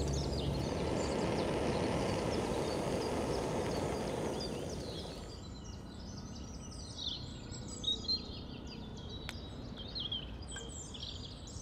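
A low rushing noise fades out about five seconds in, leaving birds chirping and twittering in many short calls.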